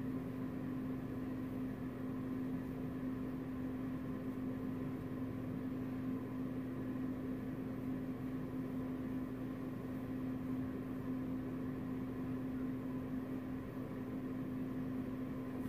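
Steady mechanical hum: a constant low drone over a faint even hiss, with no change in level.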